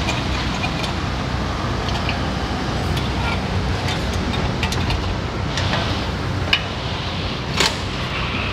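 Scattered metal clicks and taps of hand tools and parts during work on a car's rear handbrake shoe hardware. A louder click comes about six and a half seconds in and another shortly after, over a steady low rumble.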